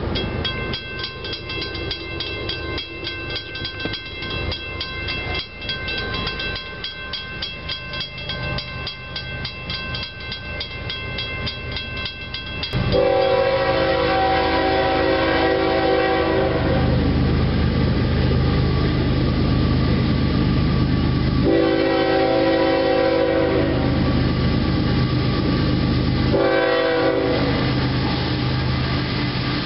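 A crossing warning bell ringing in a fast, even rhythm for about the first thirteen seconds. Then a CSX ES44AC diesel locomotive's horn sounds the grade-crossing signal, long, long, short, long, over the low rumble of the approaching train.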